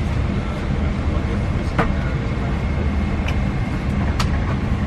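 Steady low rumble of a parked Boeing 777-300ER's cabin on the ground, the hum of its air supply, with three sharp light clicks.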